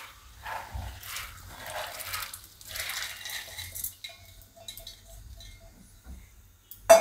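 Soaked mung beans poured from a steel bowl into a pan of boiling water: an irregular splashing rattle for about four seconds as they tumble in and the last ones are knocked out of the bowl. The pan then quietens to a faint bubbling simmer, with one short loud knock of metal near the end.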